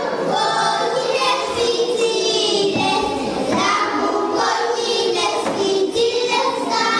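Young girls singing a song together into microphones, their voices amplified.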